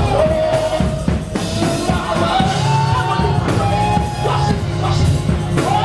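Gospel worship music: a voice singing a held, gliding melody over a drum kit and bass.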